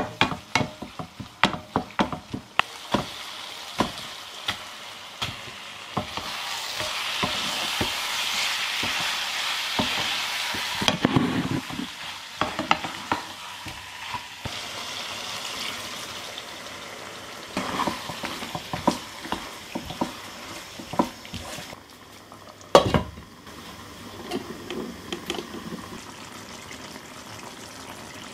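A wooden spatula stirs and scrapes spiced masala and chicken pieces around a nonstick kadai while the oil sizzles. The sizzle swells for several seconds part-way through, and the spatula scrapes in quick bursts. Near the end there is a single loud knock, then a quieter steady simmer.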